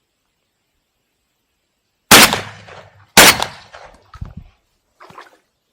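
Two shotgun shots about a second apart, each trailing off in a long echo, followed by a few fainter short sounds.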